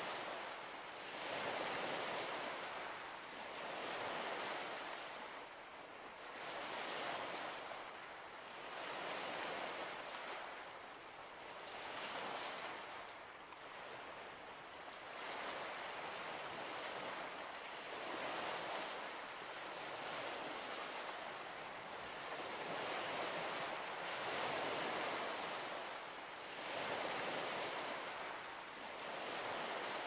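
Waves washing onto a shore in a steady hiss that swells and fades every two to three seconds.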